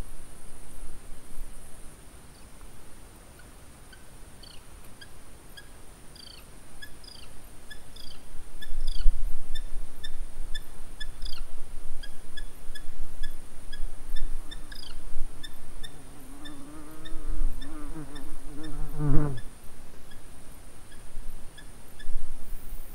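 Repeated short, sharp falling calls, several a second, from about four seconds in, which the uploader takes for a Eurasian hobby, over a steady high buzz of insects. A lower, wavering pitched sound comes in about two-thirds through and ends with a knock.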